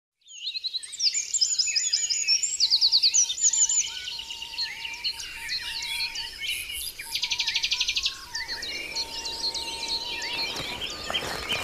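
Many small birds chirping and calling together, with quick downward chirps and a few bursts of very fast trills.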